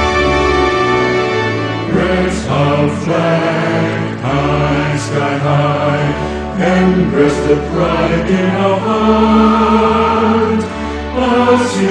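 Voices singing an anthem-like song over orchestral backing, the singing coming in about two seconds in over held chords.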